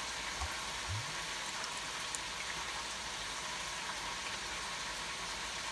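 Chicken wings frying in oil in a deep fryer at 375°F: a steady crackling hiss.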